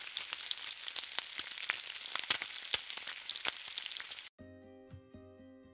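Frying sound: food sizzling in hot oil, a dense crackle of pops, which cuts off suddenly about four seconds in. Quieter music with held notes follows.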